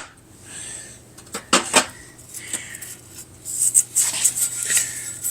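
Metal parts of an old bench vise knocking and clinking as they are handled and fitted together. There are two or three knocks about a second and a half in, then a quicker run of clicks and scrapes near the end, over a faint steady hum.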